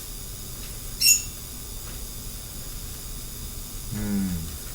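A single sharp, high click about a second in over a steady low hum and hiss, then a brief hummed vocal sound from a man near the end, falling in pitch.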